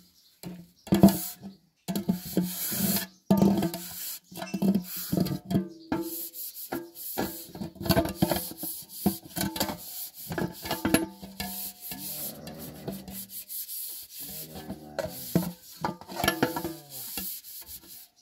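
Large aluminium pot being scrubbed by hand: quick, repeated scraping strokes of a scourer against the metal, in bursts with short pauses.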